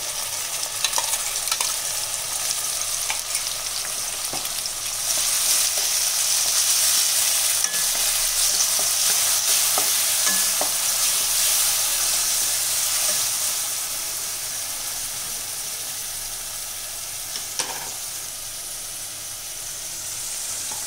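Freshly added tomato and dried red chilli paste sizzling in hot oil with sautéed capsicum in a kadai, stirred with a wooden spatula. The sizzle grows louder about five seconds in and eases off through the second half, with occasional light scrapes and taps of the spatula on the pan.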